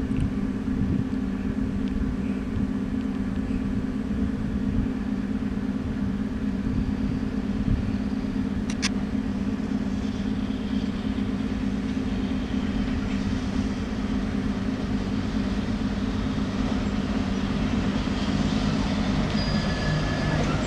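VL11M electric freight locomotive approaching with a container train: a steady electrical hum that grows louder as it nears, with wheel-on-rail noise building near the end. A single sharp click about nine seconds in.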